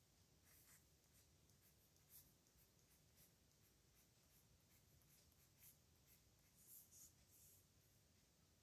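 Faint scratching of a pen nib on paper in short, irregular handwriting strokes, with a few louder scratches near the middle and toward the end.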